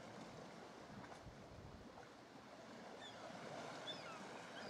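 Faint lapping of calm sea water around a drifting sea kayak, with a few faint, short, high chirps from distant birds about three to four seconds in.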